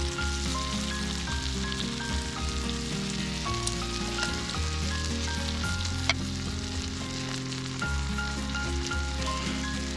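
Food sizzling as it fries in a pan, a steady hiss, under background music of held melody notes. One sharp click about six seconds in.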